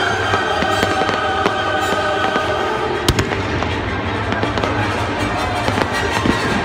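Aerial fireworks bursting in a rapid run of bangs and crackles, with one sharp, louder bang about three seconds in, over music playing at the same time.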